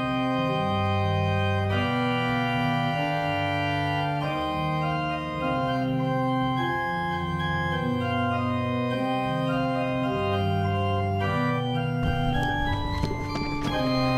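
Slow organ music of sustained chords that change every second or two. A short stretch of noise comes in near the end.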